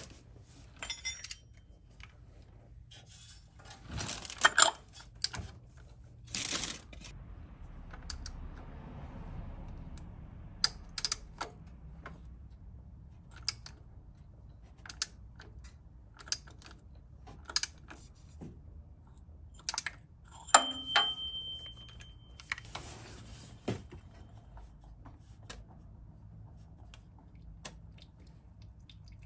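Oil filter being loosened with a cup-type filter wrench on a ratchet and extension: sharp metallic clicks and knocks about once every second or so through the middle, with a few short scraping and rustling sounds.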